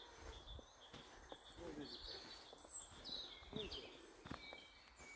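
Faint birdsong, a few short high chirps, over quiet outdoor background noise, with occasional soft footsteps on a forest path.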